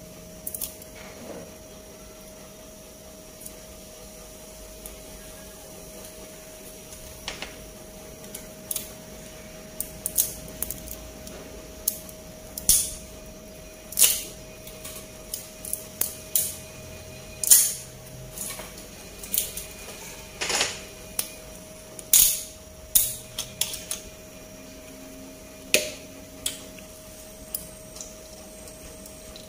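Frying pan on the stove giving off scattered sharp ticks and crackles, irregular and thickest in the middle of the stretch, over a faint steady hum.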